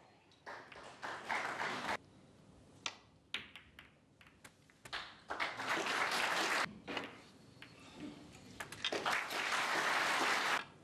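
Audience applauding in three short bursts, each cutting off abruptly, with a few sharp clicks in between.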